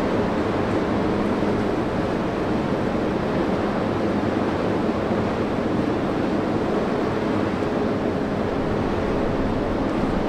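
Steady drone of ship engines, with a few held humming tones, under a constant rush of wind and water noise on the microphone.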